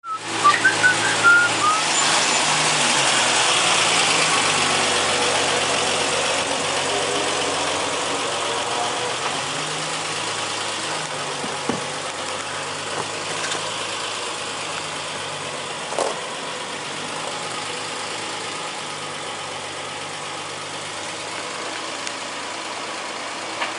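Dodge pickup truck engine idling steadily.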